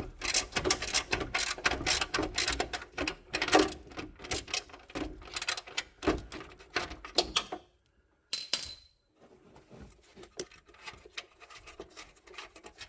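Rapid clicking and knocking of a hand tool working an 8 mm fog light bracket bolt loose. It cuts off suddenly about eight seconds in, and only fainter scattered clicks follow.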